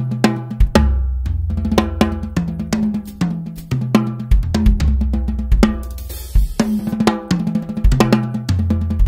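Drum kit with Remo Controlled Sound Clear heads (a single 10-mil ply with a black 5-mil dot) played in a groove with snare and kick. Tom fills ring out in runs that step down in pitch toward the floor tom. A cymbal crashes about six seconds in.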